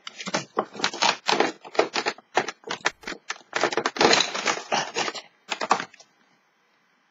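Small cosmetic packaging being handled: a blush compact and the calendar's cardboard give a quick, irregular run of clicks and rustles that stops about six seconds in.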